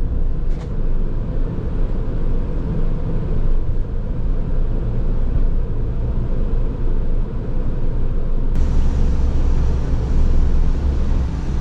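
Steady road and engine rumble of a moving car heard from inside, with tyre and wind hiss. About eight and a half seconds in it switches abruptly to a louder, hissier rush.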